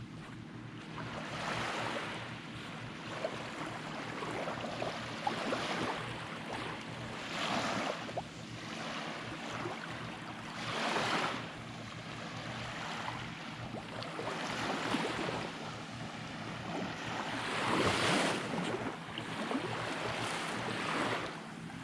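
Small waves washing up on a sandy beach, each one swelling and falling away every few seconds, the biggest about three-quarters of the way through.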